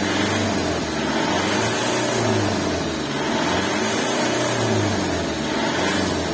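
2001 Kia Carnival's 2.9-litre turbo diesel engine held at about 3,000 rpm, its pitch easing and swelling slightly about every two seconds. The high revving works a carbon-cleaning additive through the engine oil and blows carbon out of the exhaust.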